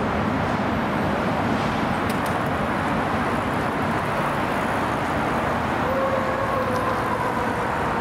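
Fire trucks' diesel engines and street traffic running, a steady rumble as the apparatus drives off. A faint steady tone comes in about six seconds in.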